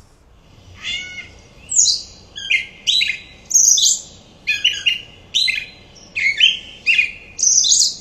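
Recorded gray catbird song played back: a rambling string of short, varied squeaky phrases with brief gaps, starting about a second in.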